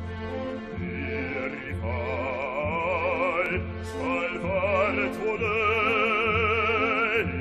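Male operatic bass voice singing a slow phrase with wide vibrato over an orchestra, which plays repeated low chords; the voice enters about a second or two in.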